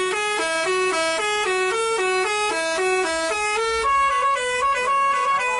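Bus's Basuri 'telolet' musical horn playing a tune: a loud, unbroken run of horn notes stepping from pitch to pitch three or four times a second.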